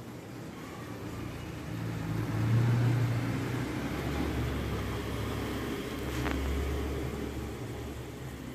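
Low engine rumble of a passing motor vehicle, swelling about two seconds in, settling to a deeper hum and fading near the end. A single sharp click comes about six seconds in.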